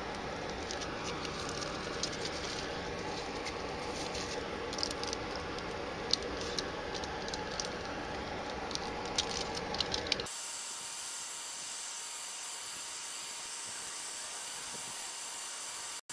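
Steady background hiss with irregular small crackles and clicks as black silicone self-fusing tape is stretched and wrapped around a coax lightning arrester. About ten seconds in the sound changes abruptly to a thinner, even hiss with no handling noise.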